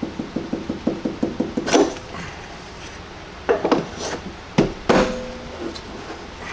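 Rapid, even clicking of a ratchet wrench, about seven clicks a second, for the first second and a half, then a handful of sharp metal knocks and clanks, one ringing briefly, as the steel ACOS adjustable coil mount's center shaft is adjusted and the mount worked up flush against the Jeep's coil tower.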